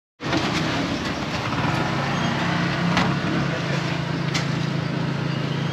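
Street traffic noise with a motor vehicle engine running steadily nearby, its low hum settling in about halfway through, and a few light clicks. The sound drops out briefly at the very start.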